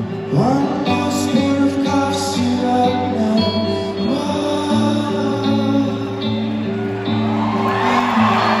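Live rock band playing the closing bars of a song, with guitar and a male voice singing. A crowd starts cheering near the end.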